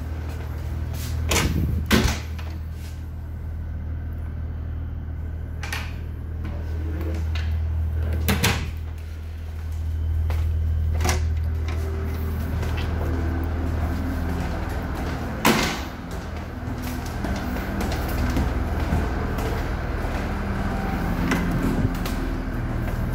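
Wooden interior doors with metal lever handles opening and closing: a handful of sharp latch clicks and knocks, spread out, over a steady low hum.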